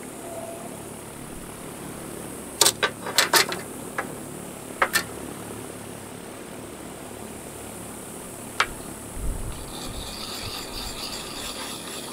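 Metal hand tools clinking and being set down on a workbench, a quick cluster of clacks then a few single knocks, followed near the end by a steady rasping scrape of a tool being worked.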